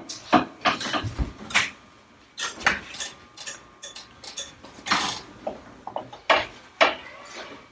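Chiropractic table being lowered from upright, with a string of irregular metallic clicks and clanks.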